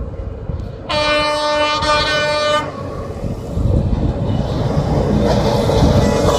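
CFR class 40 (LE 060 EA) electric locomotive sounding its horn once, a single steady blast of under two seconds about a second in. It is followed by the swelling rumble of the locomotive rolling in along the track and passing close by.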